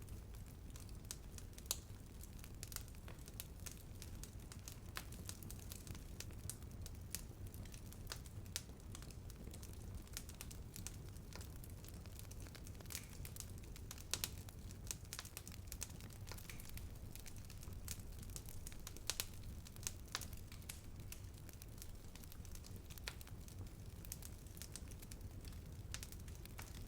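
Bonfire burning with a low steady rumble and frequent sharp crackles and pops of burning wood scattered throughout.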